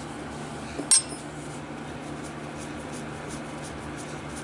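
A wrench clinks sharply once against the nut on a hydraulic valve's control rod about a second in, followed by a few faint metal ticks, over a steady low hum.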